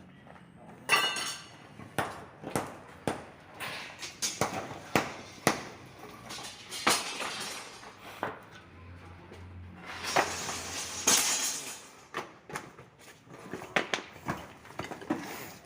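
Irregular metal knocks and clanks, some sharp and ringing, with a longer scraping rush about ten seconds in, from a heavy machine lathe and its gear being shifted by hand.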